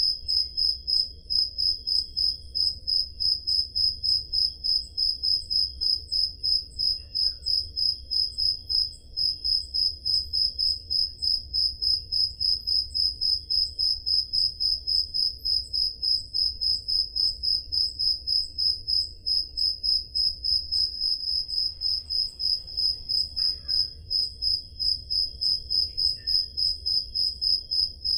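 Crickets chirping: one loud cricket repeats an even high chirp about three times a second without a break, with fainter crickets chirping behind it.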